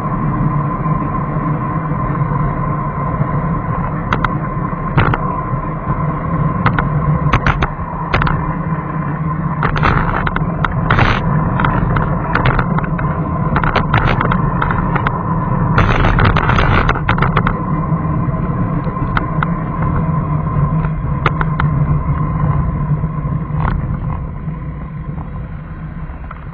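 A vehicle running on a city road, heard from a camera mounted on it: a steady drone with a constant whine, and scattered clicks and rattles. It gets quieter in the last few seconds as the vehicle slows.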